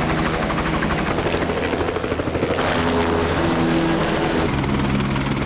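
Helicopter running steadily, with its rotor and engine hum and a fast pulsing beat from the blades; the sound changes character abruptly a few times.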